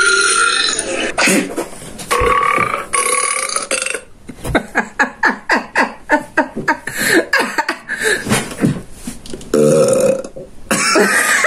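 A person belching, drawn out over the first few seconds: a real burp, not an imitation. It is followed by a fast run of short, choppy sounds.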